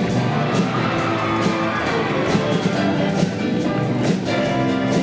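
Show choir's live backing band playing an instrumental passage with guitar and drum kit and a steady beat.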